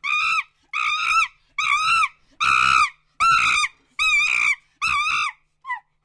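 Monkey screaming: seven loud, shrill calls in an even series, about one a second, each rising and then falling in pitch, with one short faint squeak near the end.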